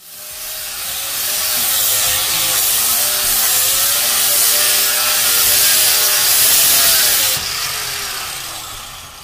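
Handheld angle grinder with an abrasive disc sanding along a wooden door-frame post, its motor whine wavering as the disc presses on the wood. Near the end the grinding noise drops off and the sound fades away.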